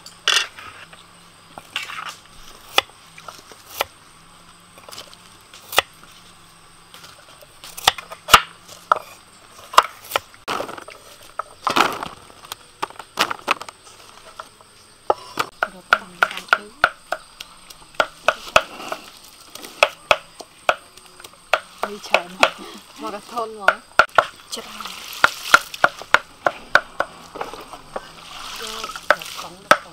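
Kitchen knife chopping carrots on a thick wooden chopping board: sharp, irregular knocks of the blade on the wood. A soft rustling comes in near the end.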